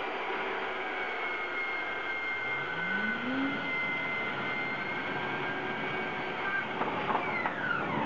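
Mafell Z5EC portable bandsaw, with its 2250 W motor, running steadily as its blade cuts through a large timber beam, a constant whine over the sawing noise. Near the end the whine falls in pitch as the saw comes out of the cut.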